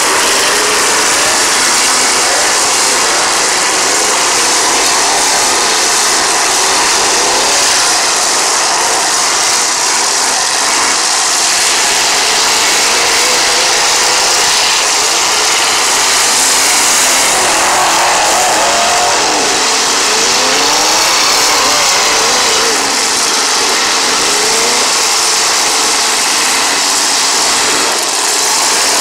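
Engines of several demolition derby trucks revving hard, the pitch rising and falling again and again in a loud, continuous din.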